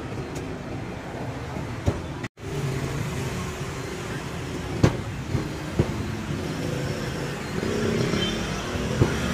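Steady street traffic noise with a few sharp, separate knocks of a cleaver chopping roast duck on a wooden chopping block. The sound cuts out briefly about two seconds in.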